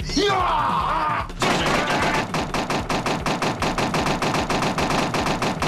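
A fast, even burst of sharp cracks, about ten a second, lasting about four seconds, like automatic gunfire. It follows a brief sound of wavering pitch.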